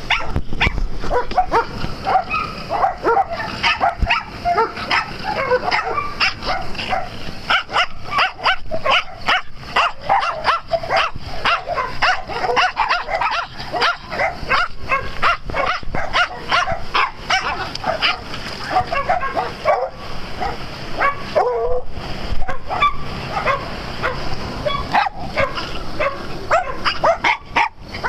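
Several small dogs barking over one another without pause, many short barks a second.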